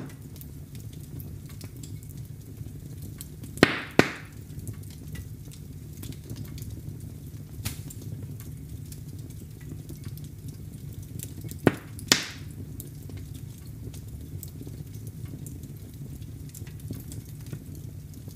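Wood fire burning in a fireplace: a steady low rumble of flames with light crackling throughout. There is a sharp pop right at the start, then two pairs of loud pops, each pair about a third of a second apart, around four seconds in and again around twelve seconds in.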